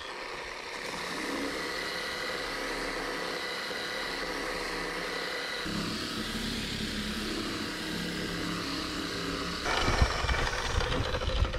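Electric random orbital sander with 120-grit paper, running steadily with a motor whine for sanding primer. About ten seconds in it grows louder and rougher.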